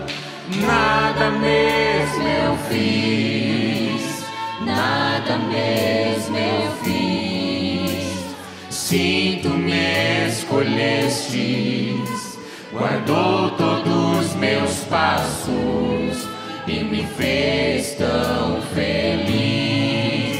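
Mixed male and female voices singing a gospel hymn together in harmony through microphones, in long sung phrases with short breaks between them.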